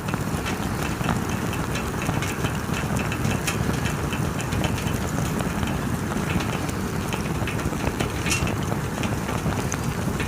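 Bonfire crackling and popping over a steady low rush, with one sharper pop about eight seconds in.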